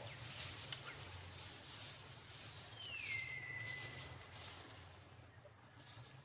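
High, thin whistled animal calls: a few short ones and one longer call that slides down and then holds steady for about a second and a half. Light rustling and scuffling underneath.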